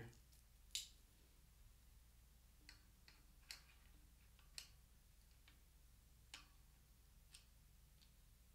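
Sparse small clicks and taps of a brake pad and its bolt hardware being handled and fitted onto a bicycle's front rim caliper brake, about seven in all, the sharpest about a second in, against near silence.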